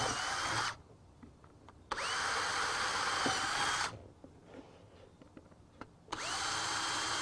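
Cordless drill with a long bit boring holes through a wooden board, in bursts of about two seconds. It stops about half a second in, starts again about two seconds in and again about six seconds in, each start a quick rising whine as the motor spins up.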